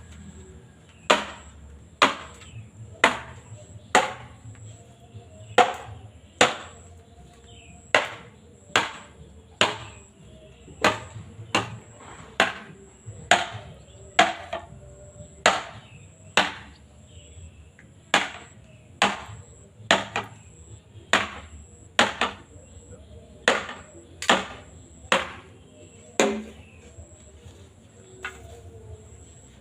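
Bamboo being split by hand: a long, steady series of sharp chopping strikes on bamboo, roughly one a second, stopping a few seconds before the end.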